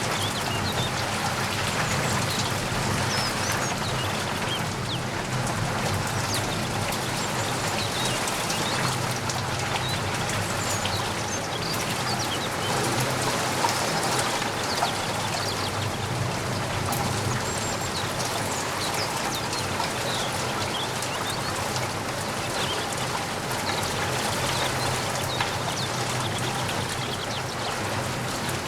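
Steady rain falling, with many individual drops pattering close by, and now and then a few short high bird chirps.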